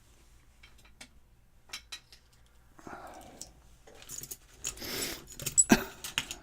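Metal clicks, jangles and scraping as a picked challenge lock and its tools are handled while the lock is being opened up to be taken apart, ending in one sharp loud click near the end.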